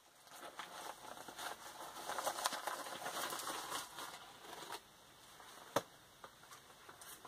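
Packaging being unwrapped and handled, with rustling and crinkling, busiest over the first five seconds, then one sharp click near six seconds.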